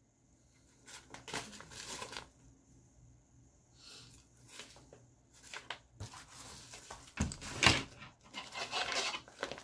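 Chicken Tramper Ultralight Gear nylon mesh water bottle sleeves being handled and turned in the hands: irregular rustling and scraping of mesh and webbing, coming in several short spells, the loudest about three quarters of the way in.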